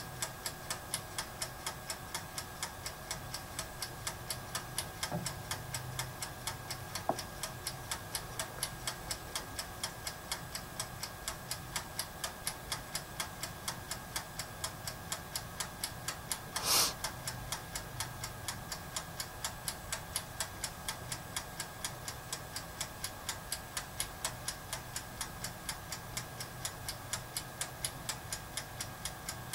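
Toaster oven's mechanical timer ticking evenly, about three ticks a second, as it counts down the reflow bake, over a low steady hum. A brief noise cuts in about 17 seconds in.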